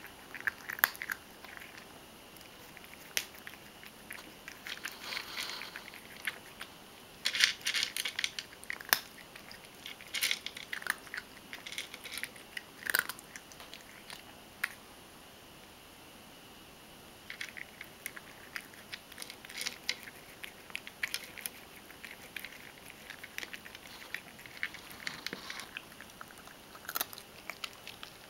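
Ragdoll cat crunching and chewing dry kibble: irregular bursts of sharp crunches, with a quieter stretch of a few seconds about halfway through.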